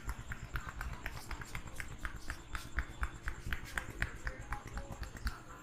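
Hands tapping and patting rhythmically during a head massage, about four or five quick smacks a second, which stop just before the end.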